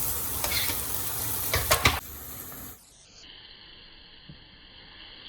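Shallots and tomatoes frying in coconut oil in a pan, a steady sizzle with a few stirring knocks, that cuts off about two seconds in, leaving a faint, dull steady hiss.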